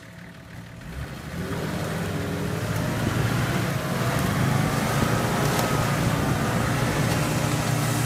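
Nissan Patrol 4x4's engine revving up about a second in and running under load as the vehicle drives off up a steep, off-camber forest slope.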